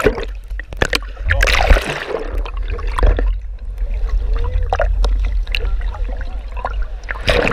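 Sea water sloshing and gurgling over a half-submerged camera microphone as waves wash through rocky shallows, with a heavy low rumble and repeated splashes.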